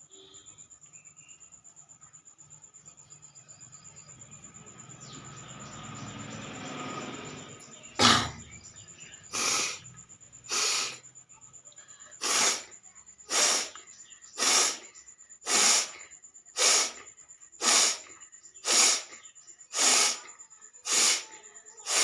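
A woman sneezing: a swelling intake of breath, then a rapid run of about a dozen sharp sneezes, roughly one a second.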